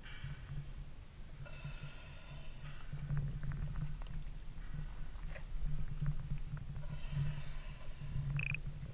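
Sea water sloshing against a camera held half-submerged at the waterline, a steady low churning. Three drawn-out tones, each about a second long, sound above it near the start, about 1.5 s in and about 7 s in, with a short rising squeak near the end.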